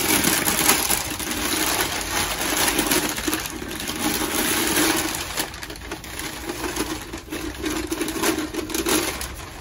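Crumpled packing paper crackling and rustling without a break as it is pulled apart by hand to unwrap a porcelain piece.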